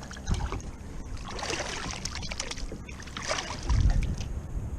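Wind rumbling on the microphone in a small boat, with scattered rustling and clicks from handling and a dull thump about three and a half seconds in.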